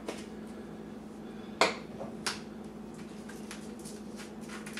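Small kitchen clicks and knocks of utensils or containers handled over a mixing bowl: one sharp click about one and a half seconds in, a smaller one just after, then a few faint ticks, over a steady low hum.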